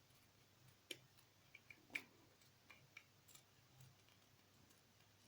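Near silence broken by a few faint, short clicks and taps, typical of small plastic pieces being handled; the sharpest click comes about two seconds in.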